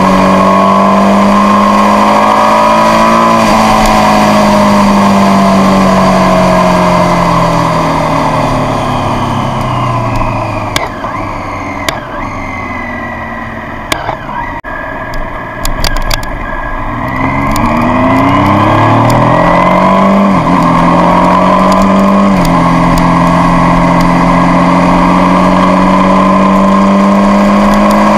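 Triumph Street Triple's three-cylinder engine on the road: a steady note whose revs fall away as the bike slows, running low for a few seconds with a few sharp clicks, then rising hard under acceleration with two upshifts about two seconds apart before settling into a steady cruise.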